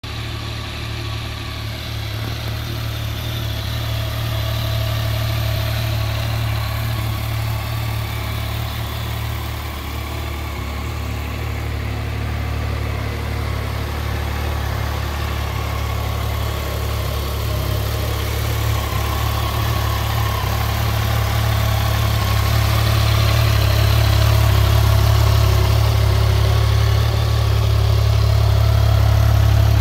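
Yamaha Tracer 900 GT's 847 cc inline three-cylinder engine idling steadily, growing gradually louder.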